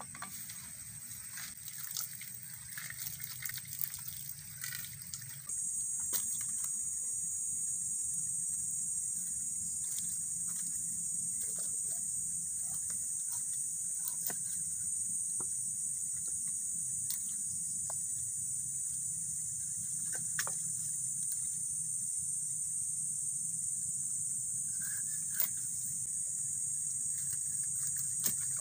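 Steady high-pitched drone of insects in tropical forest. For the first few seconds there is light water splashing as hands work in a metal pan. After that come a few scattered knocks of a bolo knife cutting on a wooden chopping block.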